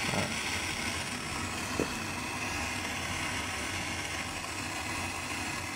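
Steady mechanical hum, with one short click about two seconds in.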